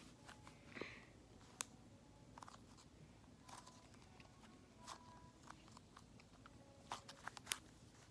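Faint sticky crackles and soft clicks of butter slime being poked and flipped by fingers, with a few sharper clicks, one about a second and a half in and several near the end.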